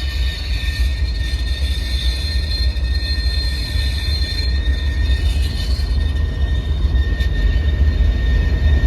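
Norfolk Southern freight train rolling past, with a heavy low rumble and a thin, steady high-pitched squeal, typical of wheel squeal.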